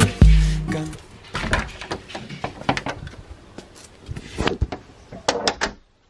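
Handling rustle and footsteps with scattered clicks and knocks as a door is opened and closed on the way outside, cutting off suddenly near the end.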